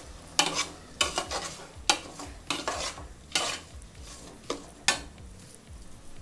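Perforated metal spatula scraping and knocking against a metal pot as it stirs a thick tomato-onion masala, in about nine uneven strokes that stop about a second before the end.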